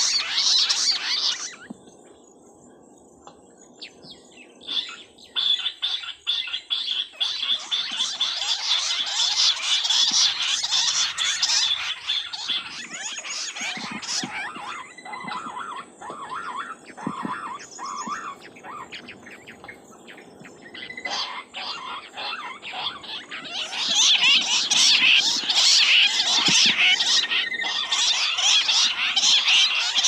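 Bush quails calling: a dense chorus of rapid, high-pitched chirps that drops away for a few seconds near the start, builds back, and is loudest again near the end.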